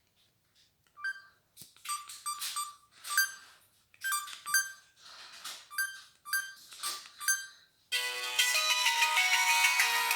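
Samsung GT-C3590 mobile phone playing its built-in tones: short bright chime notes in clusters with gaps between them, then, about eight seconds in, a fuller, denser ringtone melody starts and keeps going.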